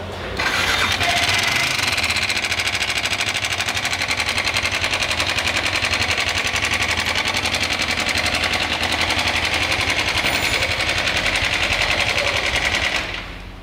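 Yamaha R15 single-cylinder engine running with a loud, rapid, even clatter from the cylinder head. The noise comes from a camshaft rocker roller that has come loose and worn out, and a loose timing sprocket bolt letting the cam sprocket wobble.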